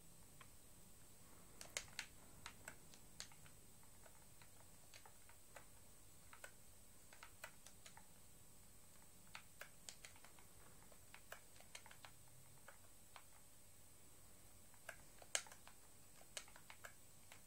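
Faint, irregular taps and clicks of typing on a tablet's on-screen touch keyboard, one or a few keystrokes at a time, with a louder tap about fifteen seconds in.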